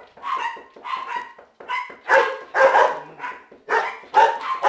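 Chihuahuas barking repeatedly in a rapid run, about two to three sharp barks a second, growing louder about two seconds in.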